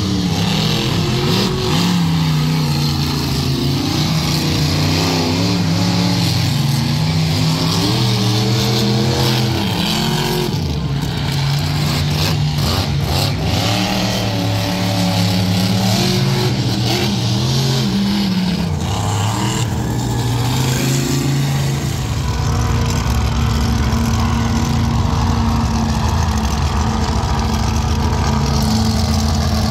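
Monster truck engines at full throttle, revving hard with the pitch climbing and dropping again and again as the trucks race. Past the two-thirds mark it settles into a steadier low engine rumble.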